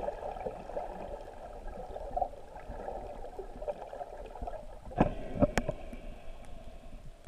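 Muffled shallow-water sound recorded underwater: a steady wash of water, with a few sharp knocks about five seconds in.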